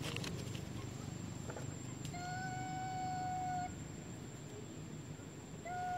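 A young macaque's long, level cry, held about a second and a half from about two seconds in, with a second cry beginning near the end.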